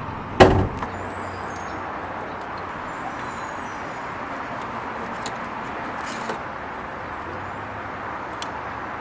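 A single loud knock about half a second in, then a few light clicks against a steady background hum, as a side-marker wire is fed through the car's wheel-well liner by hand.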